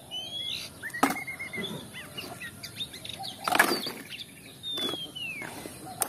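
Birds chirping: a short rising note, a quick run of repeated notes, and a long falling whistle near the end. Two sharp clacks of hard plastic toy vehicles being handled and dropped into a basket, one about a second in and one midway.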